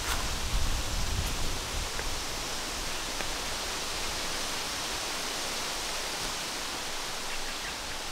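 Steady rushing outdoor noise with no distinct events, and a low, uneven rumble in roughly the first second and a half.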